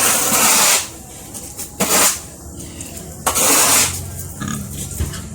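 A shovel scraping pig manure across a concrete floor in three strokes, each under a second long, about one every one and a half seconds.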